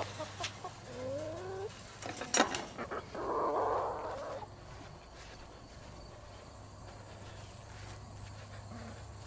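Backyard hens calling close by: a short rising call about a second in, a few sharp knocks, then a louder squawk around three seconds in. After that it goes quieter.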